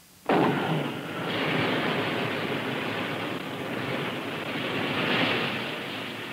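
Rocket sled running along the track through an artificial rain field: a steady rushing roar that starts abruptly and swells slightly about five seconds in.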